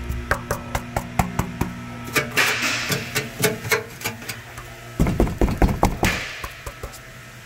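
Loose exhaust heat shield under a 2016 Nissan Rogue being knocked, rattling in a run of sharp metallic knocks, with a heavier burst of knocking about five seconds in. This loose shield is the cause of the rattle heard under acceleration.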